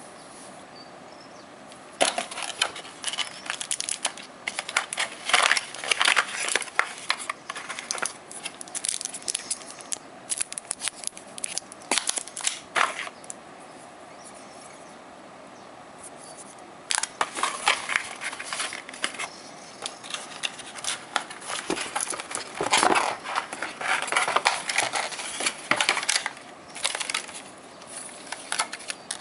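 Plastic packaging and paper leaflets crinkling and rustling as they are handled, in irregular runs of crackles and small clicks, with a quieter pause of a few seconds about halfway through.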